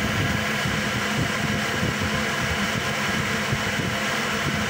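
Steady machinery drone with an even low hum, like ventilation or aircraft air-handling equipment running.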